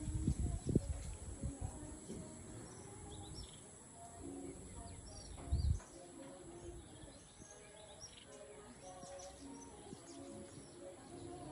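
Birds chirping with short, scattered calls, with low rumbling bumps of wind or handling on the microphone near the start and again about five and a half seconds in.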